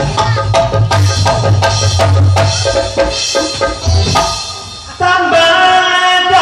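Live band music from electric guitar and keyboard over a fast hand-drum beat and deep bass. The drums drop out about four seconds in, and a long held note comes in about a second later.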